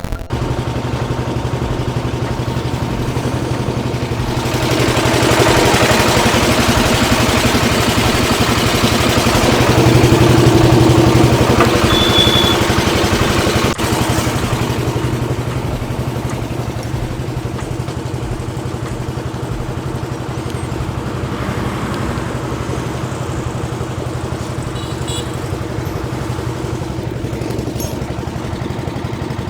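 An engine running steadily, with a stretch of louder, rougher noise from about 4 to 14 seconds in.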